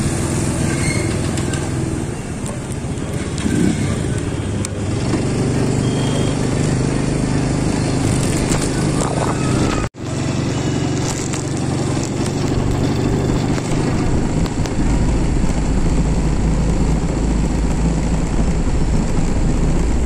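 A small vehicle engine running steadily while driving along a street, with wind rumble on the microphone that grows heavier in the second half. The sound cuts out for an instant about halfway through.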